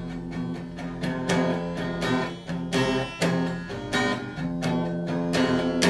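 Background music: acoustic guitar strummed and picked in a steady run of notes, with no singing.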